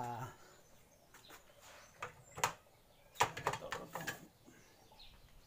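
A few sharp knocks and clatters, with a cluster of them around three to four seconds in: bottles and containers being moved on a kitchen cupboard shelf.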